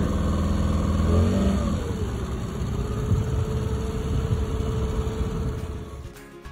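Small boat outboard motor running under way, its pitch shifting about a second in and then holding steady. Music cuts in near the end.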